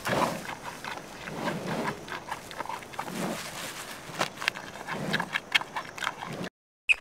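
Low, short animal grunts every second or two, mixed with scattered sharp clicks and rustling; the sound cuts out near the end.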